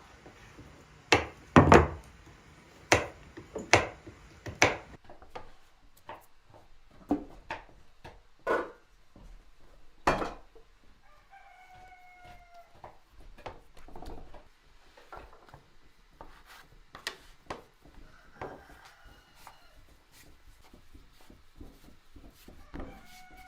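Irregular sharp knocks on wood, like a knife chopping on a wooden board, loud and close together for the first five seconds, then sparser. A chicken calls twice with a short, slightly falling cry, once about eleven seconds in and again near the end.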